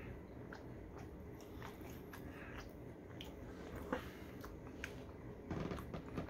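Close-up mouth sounds of a person chewing seasoned fries, with soft, scattered wet clicks. A short rustle of handling food in the plastic takeout container comes near the end.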